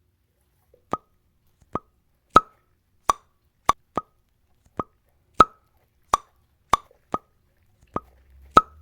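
Bubble-popping sounds: about a dozen sharp pops at uneven gaps of roughly half a second, beginning about a second in.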